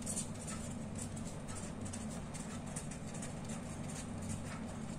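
Pen scratching on paper in quick short strokes while writing, over a steady low hum.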